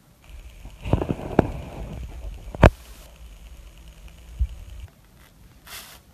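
Fingers pressing and squishing foamy, bubble-filled slime in a plastic tub: soft squishing with several sharp clicks and pops, the loudest about two and a half seconds in, and a short hissing burst near the end.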